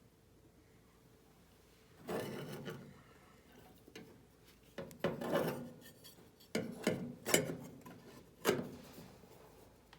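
Parts of a space heater being handled and fitted back together: a series of short scrapes and rubs, starting about two seconds in and coming several times in the second half.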